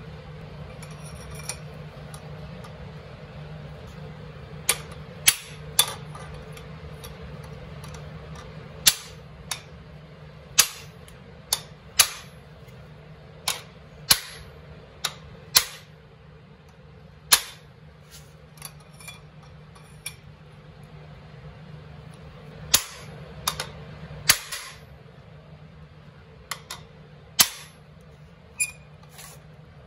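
About twenty sharp metal strikes at an irregular pace, as a new jackshaft bearing is driven down a snowmobile jackshaft with a length of copper pipe used as a driver on the bearing's inner race.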